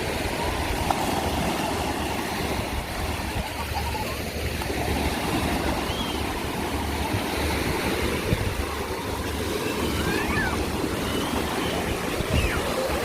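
Sea surf washing onto a sandy beach, a steady rushing noise, with strong wind buffeting the microphone in an unsteady low rumble.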